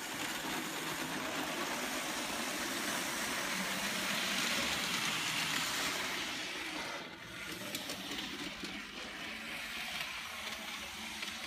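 Märklin model trains running on the layout's track: a steady whirring rattle of motors and wheels. It grows louder between about four and six seconds in as a locomotive with freight wagons passes close, then falls back after about seven seconds.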